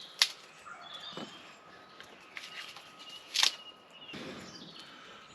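Faint outdoor background with two sharp knocks, one just after the start and another about three seconds later.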